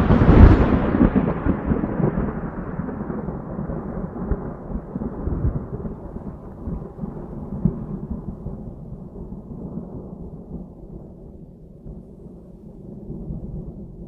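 Thunder: a loud crash that peaks again about half a second in, then a long low rolling rumble that slowly dies away.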